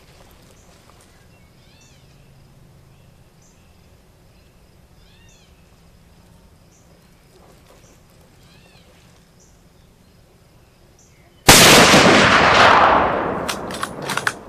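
Insects chirping in an open field, then near the end a single very loud rifle shot whose echo rolls away over the next two to three seconds.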